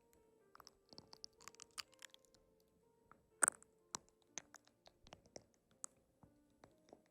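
Soft background music with held notes under scattered small clicks and crackles, one sharper click about halfway through.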